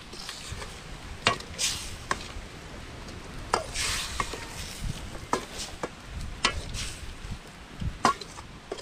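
Metal ladle stirring pieces of eel in a stainless steel pot, scraping and clinking against the pot's side in scattered strokes, with two longer scrapes in the first half.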